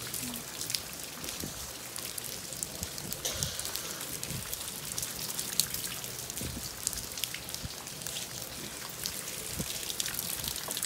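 Hurricane rain falling steadily, with many separate drops striking close by as quick ticks.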